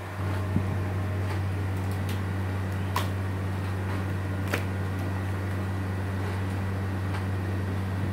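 A steady low mechanical hum, of the kind a fan or air-conditioning unit makes, with a few short wet slaps and clicks as pieces of spice-coated meat are pressed down into the pot by hand.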